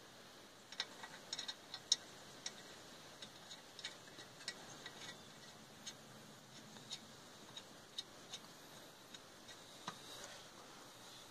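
Faint, irregular metallic ticking, a few clicks a second, as lug nuts are turned and handled on the left-hand-threaded wheel studs of a 1962 Plymouth Savoy wheel.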